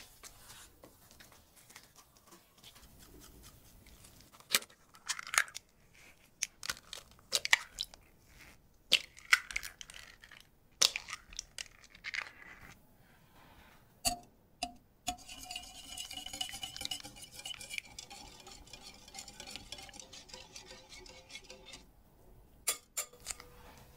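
Eggs cracked one after another into a glass bowl, a run of sharp cracks and taps, followed by a wire whisk beating the eggs against the glass for several seconds, with a couple of taps near the end.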